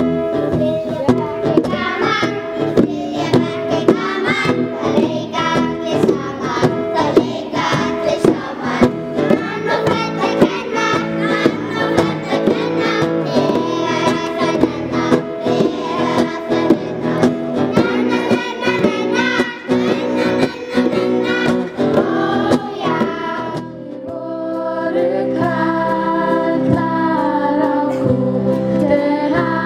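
A class of young children singing a blues song, backed by hand drums and xylophones with a steady beat. About 24 seconds in it gives way to a sing-along with held accordion chords, guitar and keyboard under the voices.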